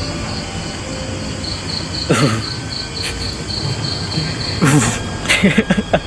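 Cricket chirping in an even, rapid train of high-pitched pulses, about four to five a second. Brief low voices break in about two seconds in and again near the end.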